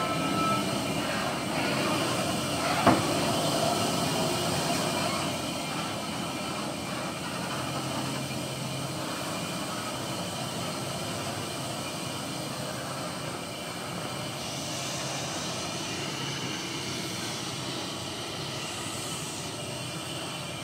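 Hino 500 truck's diesel engine running as the fully loaded truck crawls away along a rutted dirt track, growing fainter over the first several seconds and then holding steady. A single sharp knock about three seconds in.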